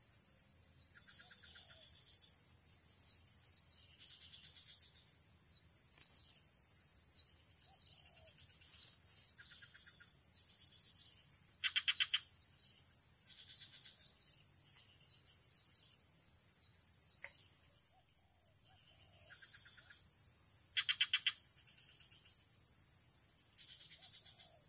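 Outdoor animal chorus: a steady high insect buzz, with short pulsed calls repeating every few seconds. Twice, about 12 and 21 seconds in, a louder call of four quick pulses stands out.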